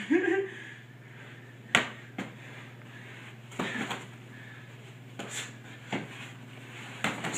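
Scattered thumps and knocks, about half a dozen, from two people fighting hand to hand, over a low steady hum.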